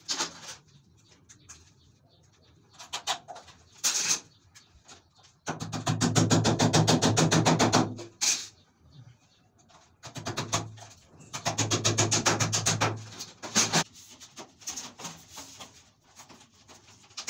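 A tool worked against a PVC wall panel and its trim in two bursts of fast, rhythmic strokes, each two to three seconds long, with a few single knocks before and after.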